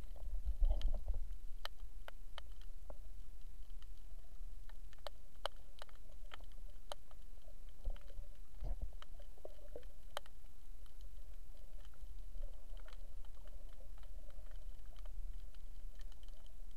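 Muffled underwater sound from a camera held below the surface: a steady low rumble of moving water with scattered sharp clicks and crackles, and a louder bubbly rush of water about a second in.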